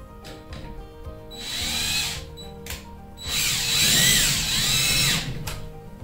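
DeWalt cordless drill driving a 7/16 bolt at the torsion spring's centre bracket, in two runs: a short one of under a second, then a longer one of about two seconds, the motor pitch rising and falling as it speeds up and slows.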